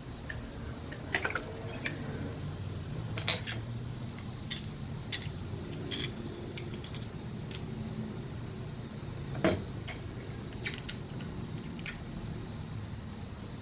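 Scattered light clicks, taps and clinks of parts and hand tools being handled in an engine bay, with a sharper knock about two-thirds of the way through, over a steady low background hum.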